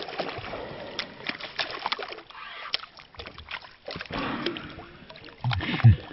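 Water splashing and sloshing, with many small knocks and clicks, as a just-landed pike is handled beside an inflatable packraft. Near the end comes a louder, low-pitched man's voice sound without clear words.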